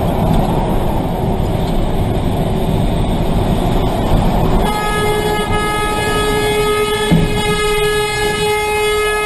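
Steady road and wind noise inside a moving car. About halfway through, a car horn starts and is held down without a break.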